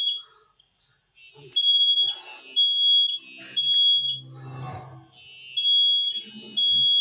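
Fire alarm sounding in the three-beep temporal pattern. Two groups of three high-pitched beeps, each about half a second long, are separated by a pause of about a second and a half.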